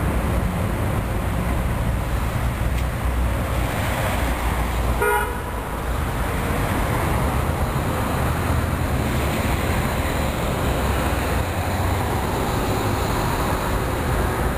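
A TMK 2200 low-floor tram approaching along the street track, its rolling noise building over the last several seconds over a steady traffic rumble. A single short horn toot sounds about five seconds in.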